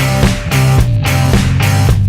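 Rock music with sustained low notes and a steady, evenly spaced beat.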